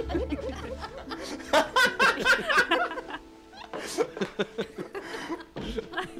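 Canned laugh track: a studio audience chuckling and laughing in several bursts, with a short lull in the middle, over soft background music.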